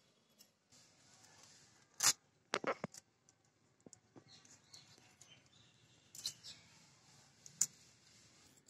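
Fish being scaled on a boti, a curved blade on a stand: a few short, sharp scrapes of the scales against the blade, a cluster about two to three seconds in and more around six and seven and a half seconds, with quiet gaps between.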